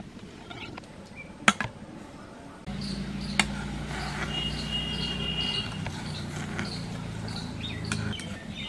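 A metal spoon stirring sugar and water in a metal karahi as it heats for sugar syrup, with a sharp clink about one and a half seconds in and another about three and a half seconds in. From a little under three seconds in, a low steady droning hum sets in and is the loudest sound until near the end, with faint short chirps repeating above it.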